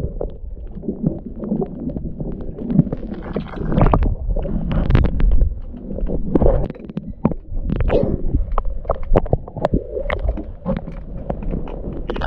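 Muffled underwater sound picked up by a submerged camera: an uneven, low-pitched rumble of water moving against the housing, with many small clicks and crackles throughout.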